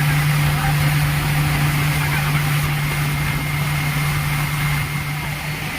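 Motorboat engine running with a steady, constant-pitched low hum, over a broad rushing noise of wind and water.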